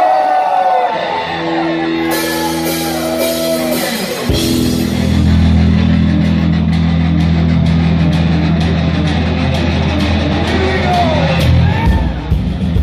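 Amplified electric guitar played live in a heavy metal instrumental, holding long ringing chords: a first one for about three seconds, then a lower one for about seven. Fans shout over it in the first few seconds, and near the end the guitar breaks into a fast struck rhythm.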